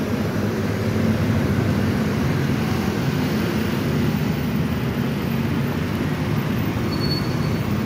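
Steady city traffic: cars and motor scooters running and passing close by, a continuous engine and tyre hum.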